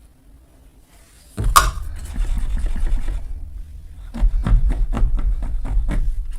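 Brittle material crushed by hand close to the microphone. A sharp crunch comes about a second and a half in, with crackling after it. From about four seconds there is a run of crisp crackles, several a second.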